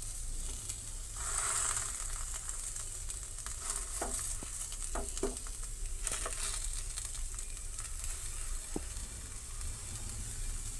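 Moong dal pizza base sizzling gently in a pan on the gas flame, with a steady hiss. A metal spatula clicks and scrapes against the pan a few times as it presses light cuts into the base, mostly around the middle and once more later.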